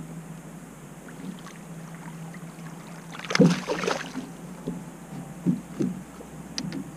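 A hooked bass thrashing and splashing at the surface beside a boat for about a second, midway through, followed by a few short knocks as it is swung aboard. A steady low hum runs underneath.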